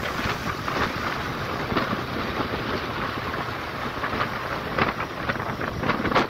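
Wind buffeting the microphone of a moving motorcycle: a steady, rough rushing over a low road rumble.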